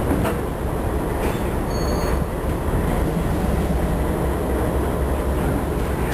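Alco HH660 switcher locomotive's six-cylinder 539 diesel engine running with a steady low rumble. A brief high-pitched squeal comes about two seconds in.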